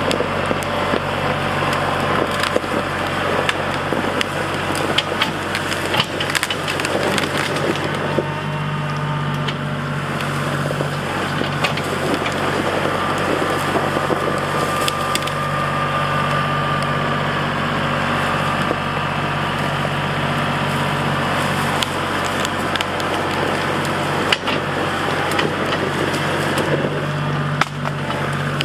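Compact tractor's engine running steadily under load as it tugs on a chained maple trunk that is wedged tight, with branches and brush cracking and snapping throughout.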